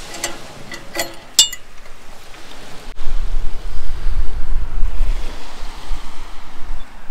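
A few sharp metal clicks and knocks from a caravan tow hitch being worked loose, then, about three seconds in, loud wind buffeting the microphone with a low rumble.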